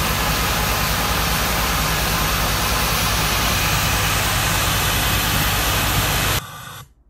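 Spillrite Drum Top Vac, a compressed-air venturi vacuum on a steel drum, running flat out while sucking up fly ash through its hose: a loud, steady rush of air with a low rumble underneath. It cuts off suddenly near the end.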